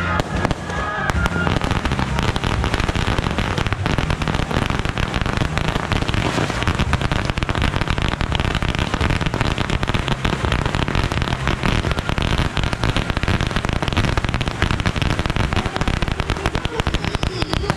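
A long string of firecrackers (a "Judas belt") going off on the pavement: an unbroken, rapid crackle of bangs that keeps going.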